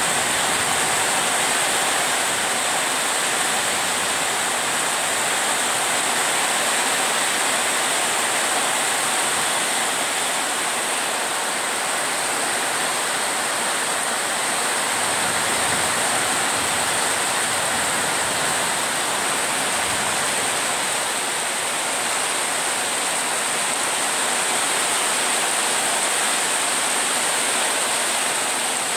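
Heavy rain pouring steadily, falling on a corrugated metal roof overhead.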